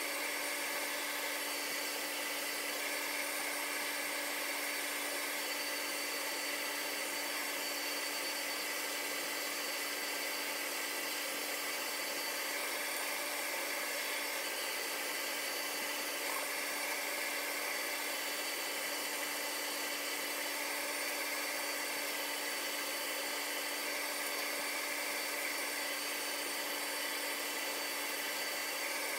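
Steady whir of high-speed cooling fans on crypto-mining hardware: a constant hiss with a few steady whining tones over it, unchanging throughout.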